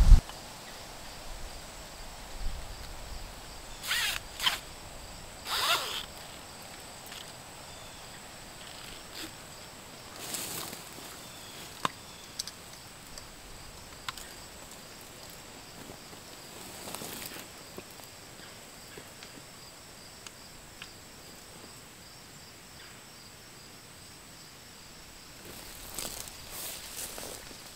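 Backpack zipper and gear handling: several short rasping zips and rustles, a cluster about four to six seconds in, more around ten and seventeen seconds, and again near the end as the pack is lifted. Between them it is quiet, with a faint steady high hum in the background.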